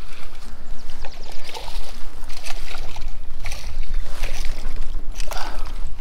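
Large smallmouth bass splashing and thrashing at the water's surface beside a kayak as it is played to the boat and scooped into a landing net, a splash roughly every second, over a steady low rumble.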